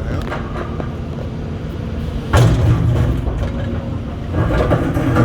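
Heavy excavating machine's diesel engine running steadily, with a sudden loud hit about two seconds in and another loud burst of activity about four seconds in.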